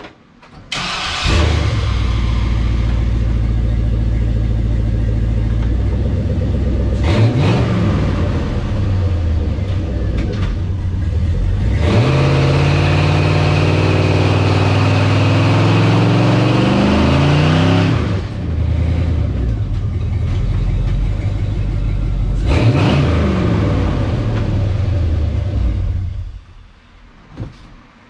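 Chevy C10 pickup's engine starts and idles, is blipped once, then is held at high revs for about six seconds in a mild brake-stand burnout, with both rear tires spinning on the mini spool-locked rear end. After one more blip it shuts off.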